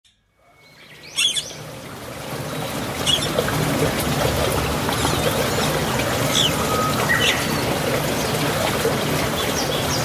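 Scattered short, high bird chirps, some falling in pitch, over a steady rush of running water that fades in over the first couple of seconds.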